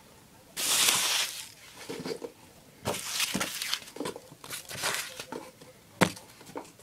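Green packing material being pulled out and handled: irregular crinkling and rustling, with a louder rush about a second in and a sharp click near the end.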